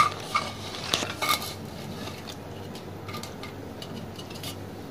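Fresh flat beans and peas dropping from a ceramic bowl into an aluminium pressure cooker, with light clinks of the bowl and vegetables against the pot. The clinks come mostly in the first second and a half, then only faint scattered ticks.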